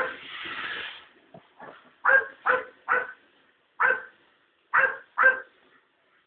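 A dog barking: a few faint yaps, then six short, loud barks in quick succession over about three seconds before it stops.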